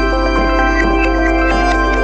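Ambient electronic background music with held chords and a steady beat.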